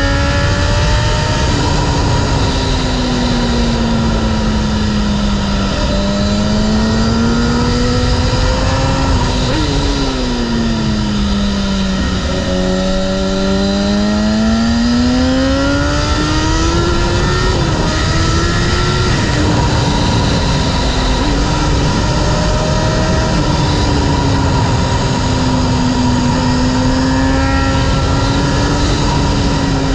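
Kawasaki ZX-6R's 636cc inline-four engine pulling the bike along at speed. The engine note falls and rises repeatedly with the throttle through the bends, dropping sharply about a third of the way in and climbing back slowly.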